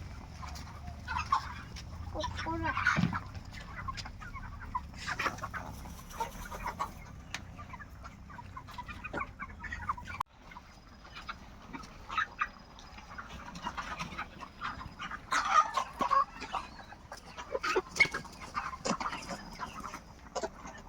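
A flock of broiler chickens clucking, with many short overlapping calls. The sound drops out sharply for a moment about halfway through, then the clucking carries on.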